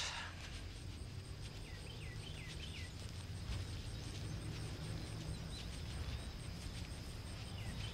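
Outdoor ambience: a low steady rumble with a faint, steady high insect drone, and a few short chirps about two seconds in, repeated near the end.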